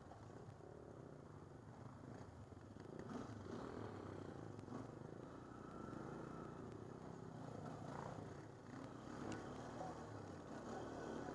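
ATV engine running at low speed on a rough trail, a low steady rumble.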